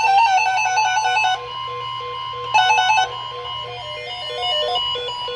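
Electronic synth music plays a stepping, beeping melody, and under it sounds a steady high tone near 1 kHz. The steady tone is typical of the NOAA Weather Radio 1050 Hz warning alarm tone, which precedes the spoken tornado warning.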